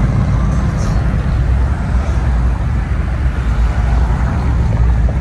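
Steady low rumble of motor vehicles and traffic.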